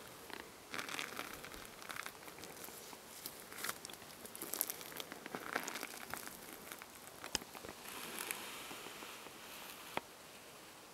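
Footsteps and clothing rustling through dry forest undergrowth, with twigs crunching underfoot and two sharp snaps, the last near the end.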